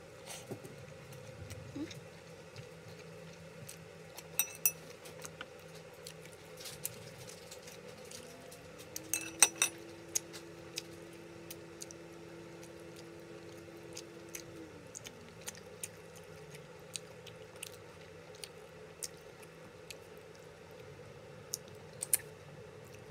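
Quiet eating by hand: chewing with scattered light clicks and clinks of fingers and food against a plate and bowl, a few sharper taps about four and nine seconds in. Under it runs a steady low hum, and a low whirring tone rises about eight seconds in, holds for about six seconds, then winds down.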